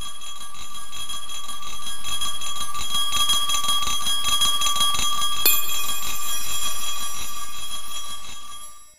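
A small bell ringing fast and continuously, fading in at the start and out near the end, with one sharper strike about halfway through.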